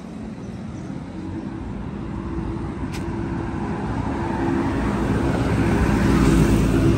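A motor vehicle's engine running on the street and drawing closer, growing steadily louder, over general street traffic.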